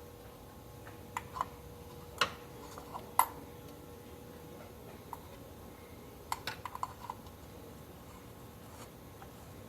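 Scattered light clicks and taps of hands handling metal parts and an oil filter, with a couple of sharper knocks about two and three seconds in and a quick cluster of clicks about six to seven seconds in, over a faint steady hum.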